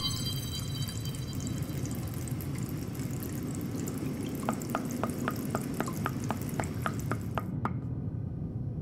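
Tap water running into a sink with a steady hiss. In the second half a run of about a dozen evenly spaced ticks comes in, about three a second, and the hiss and ticks stop suddenly near the end.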